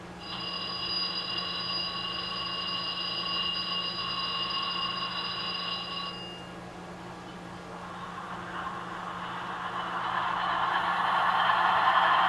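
Onboard sound decoder of a Broadway Limited Paragon 4 HO-scale ES44AC playing its extended diesel startup sequence through the model's small speaker. A steady alarm tone sounds for about six seconds and then stops. A couple of seconds later a rising, louder rush of noise begins as the GE prime mover sound starts up.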